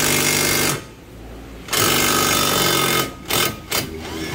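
Cordless impact wrench hammering on a car's wheel hub nut in bursts. One burst cuts off under a second in, a longer one runs from about two seconds in, and two short blips follow near the end.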